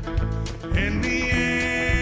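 Country-style song with guitar and a steady beat, between sung lines.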